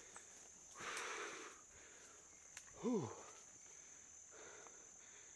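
A cyclist's heavy breathing while pedalling a mountain bike up a steep climb, with one short downward-gliding groan about three seconds in. A steady high-pitched insect trill runs underneath.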